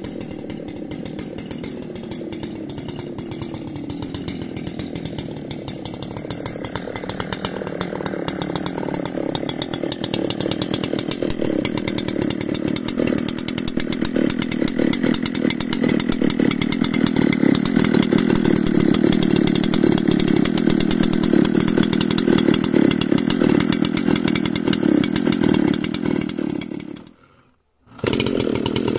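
Makita EA7900 79 cc two-stroke chainsaw running, its pitch shifting over the first few seconds, then steady and louder as it cuts into a log. It breaks off for about a second near the end and comes straight back.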